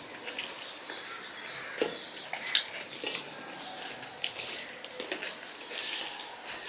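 Fingers mixing and mashing rice by hand on a steel plate: soft squishing with scattered light clicks of fingers and rice against the metal.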